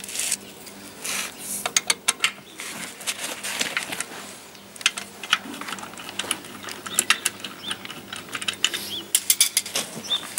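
Ratchet wrench clicking in short, irregular runs, with light metal clinks, as the wheel nuts on a tractor's front wheel are undone.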